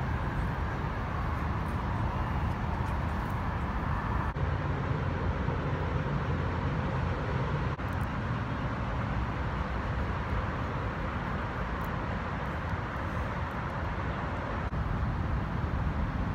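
Steady outdoor city background noise: a low rumble with a hiss over it, with no clear single event, changing slightly a few times.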